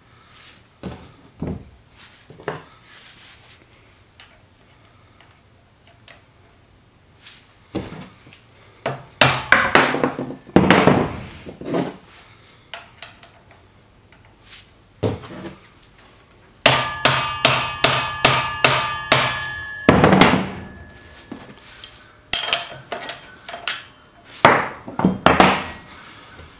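Hammer blows on a motorcycle's stuck front axle, striking metal to drive it out: scattered hits and short clusters, then a quick run of about ten ringing strikes, roughly three a second, about two-thirds of the way through.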